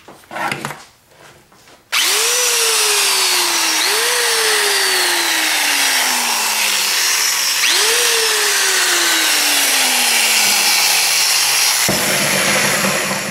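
Corded electric drill switched on about two seconds in and running for about ten seconds on its freshly spliced and soldered power cord, then stopping. Its motor whine jumps up in pitch and slowly sinks three times. The run shows the repaired cord works.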